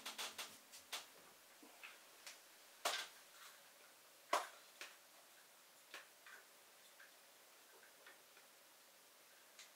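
Faint clicks and knocks of a camera rig being handled: a Sony FX-series cinema camera with a smartphone monitor on a ball-head magic arm, picked up from a wooden counter and adjusted. Quick ticks in the first second, two louder knocks about three and four and a half seconds in, then sparse light ticks.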